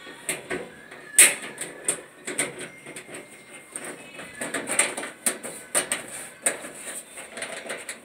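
Irregular clicks, knocks and rattles of hands and tools handling the metal parts of a clothes dryer under repair; no motor or drum is running.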